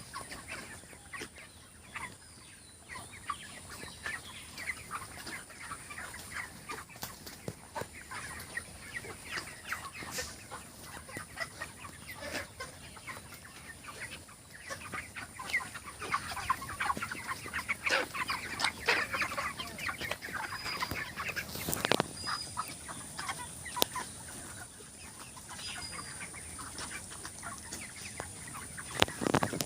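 A flock of 37-day-old broiler chickens clucking and chirping, with many short calls overlapping, busiest about two-thirds of the way through. A sharp knock stands out about 22 seconds in.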